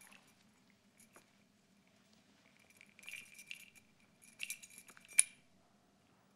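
Light metallic clinks and clicks of a small whistle being handled and let fall, scattered through the pause, with the sharpest single click about five seconds in.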